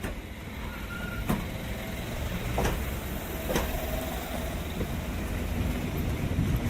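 Added sound-effect track: a steady low rumble with three sharp knocks spread over the first few seconds and a couple of faint short tones.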